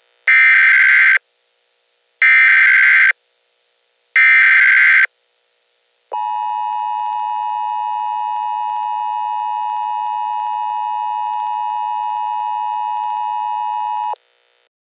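Emergency Alert System alert signal: three bursts of SAME header data, a harsh digital screech each about a second long, two seconds apart. About six seconds in, a steady attention tone begins, holds for about eight seconds and cuts off.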